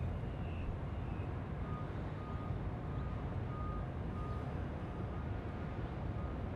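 Airport background: a steady low rumble with no rise or fall. From about two seconds in, a faint electronic beep repeats about twice a second, like a ground vehicle's reversing beeper.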